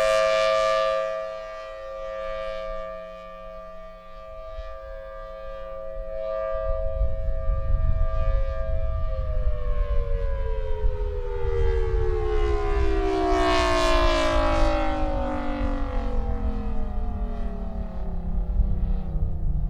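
Federal Signal Thunderbolt 1003 rotating civil defense siren sounding its steady two-tone Alert signal, its loudness falling and swelling as the horn turns. About nine seconds in, the pitch begins a long steady fall as the siren winds down at the end of the signal. Wind rumbles on the microphone from about seven seconds in.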